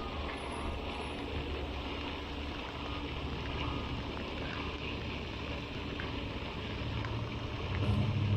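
Steady patter of rain on a rain jacket. In the last second a low engine hum swells louder.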